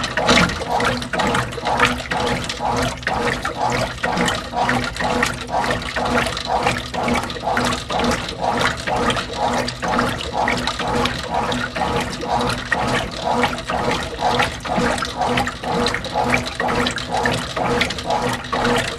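1991 Whirlpool WorldWasher top-load washing machine in its rinse, the agitator churning the rinse water back and forth in an even rhythm of about two strokes a second over a steady motor hum.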